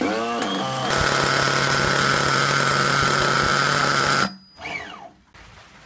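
Nitro RC car engine running with an electric starter box's rubber spinner pressed against its flywheel. A rising whine in the first second settles into a steady loud run that cuts off sharply about four seconds in and falls away, as the spinner stalls the engine.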